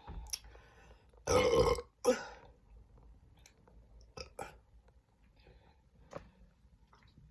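A woman burping, with one loud burp lasting about half a second followed right after by a shorter one. The burps are brought up by chugging fizzy Diet Pepsi.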